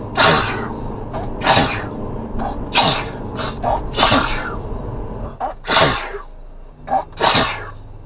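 A man sneezing over and over in an uncontrollable fit. There are about six loud sneezes, roughly one every second and a half.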